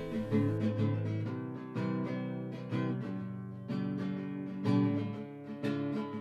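Acoustic guitar strummed and picked in chords, the instrumental opening of a country-style song.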